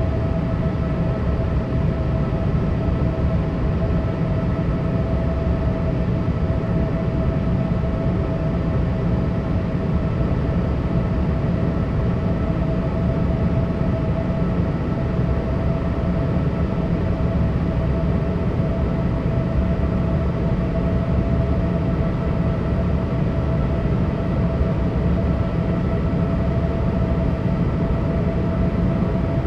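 Steady cabin noise inside a Boeing 787 jetliner: a constant low roar of jet engines and airflow, with a steady hum running through it.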